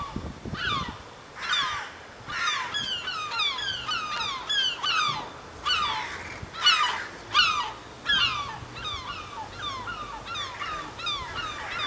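A flock of birds calling: many short, overlapping calls, each dropping in pitch, repeating irregularly.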